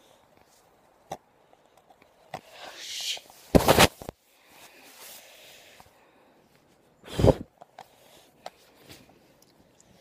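Handling noise on a phone's own microphone as the phone is fumbled into snow: a scraping rub, then a heavy thud about three and a half seconds in and another about seven seconds in, with a few small knocks between.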